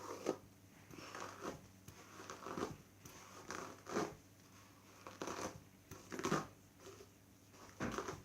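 Hairbrush dragged through knotty hair in short, irregular scraping strokes, about one a second.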